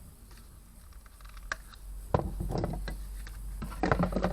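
Handling noises of a new spray gun and its packaging: quiet at first, a single sharp click about a second and a half in, then small knocks and rustles of parts being picked up and moved.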